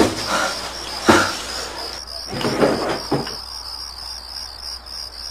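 Cricket chirping steadily in quick, even pulses. A few short, soft noises sound in the first three seconds, the sharpest at the very start and about a second in.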